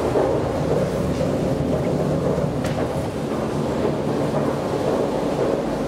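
Metro station background noise: a steady low rumble with a faint click about two and a half seconds in.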